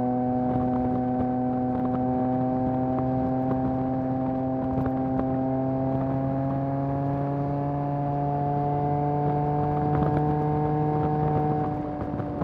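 Yamaha MT-09's three-cylinder engine through a Mivv full-system exhaust, pulling steadily under way with its revs rising slowly. Near the end the note drops and gets quieter.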